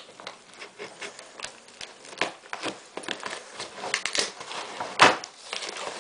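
A cardboard shipping box being cut open with scissors and a knife: a run of short snips, scrapes and rustles of card, with one louder crack about five seconds in.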